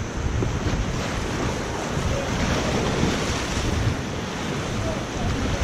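Whitewater rapids rushing steadily around a kayak, with wind buffeting the microphone and adding a low rumble.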